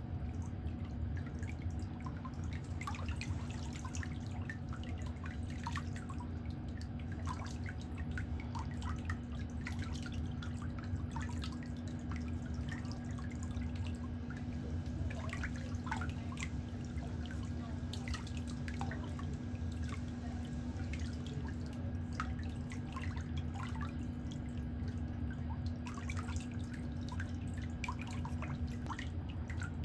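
Water dripping in irregular drops, over a steady low hum.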